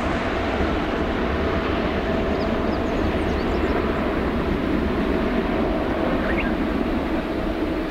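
Jet engines of an ANA twin-engine wide-body airliner rolling down the runway: a steady, even engine noise with a faint constant hum.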